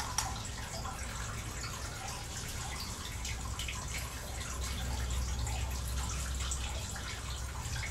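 Water trickling and dripping steadily, with small scattered drips over a low steady hum.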